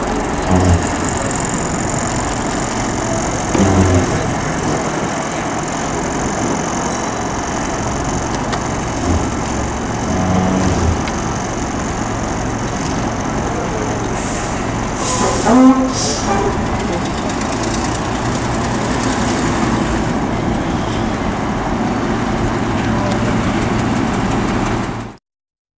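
Scania Solar single-decker bus running, a steady engine and road noise with a few low bumps, and a short burst of hiss about fifteen seconds in; the sound cuts off shortly before the end.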